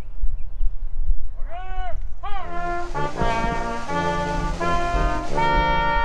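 Brass quintet of trumpets and trombones playing slow, sustained chords, coming in about two and a half seconds in after a few short swooping notes.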